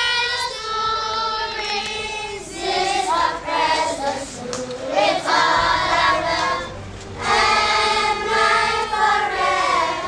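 A group of schoolchildren singing together as a choir, in sung phrases with short breaks between lines.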